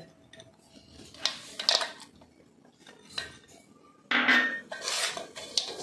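Metal spoon clinking and scraping against a stainless-steel bowl of crumbly rava laddu mixture as raisins are added: a few separate clinks, then a longer run of scraping and clatter from about four seconds in.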